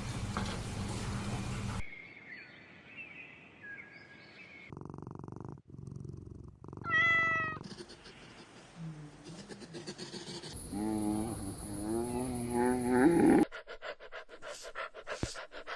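A string of short spliced animal clips: a cat purring, a short high meow about halfway through, and a long wavering cat call that rises in pitch and cuts off suddenly, followed by a run of clicks.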